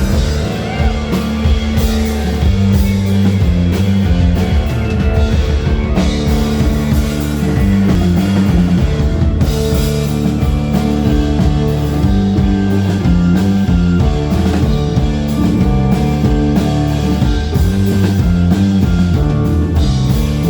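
Live band playing loud psychedelic rock: sustained droning guitar and bass notes over a steady drum kit beat.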